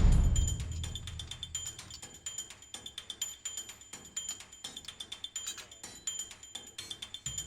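Quiet background music made of rapid, light clicking percussion with a high repeating tone.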